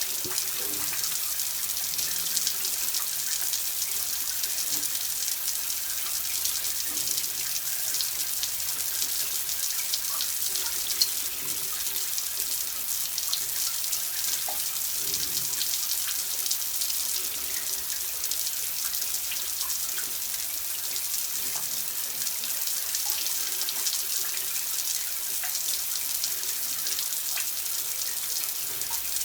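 Water running steadily from a tap, a continuous splashing hiss with small drip-like ticks.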